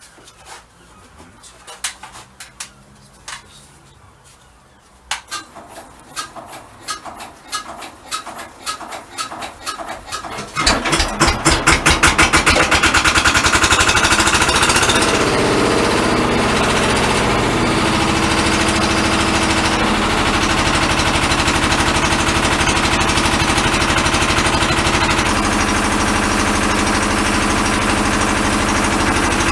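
Smalley MK5 excavator's Lister SR1 single-cylinder air-cooled diesel being hand-cranked, its beats quickening, then catching about a third of the way in and running loudly and steadily.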